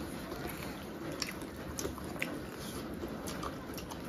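Close-up eating sounds: chewing with wet mouth and lip smacks, and scattered sharp clicks, as chicken feet, gizzards and liver with rice are eaten by hand.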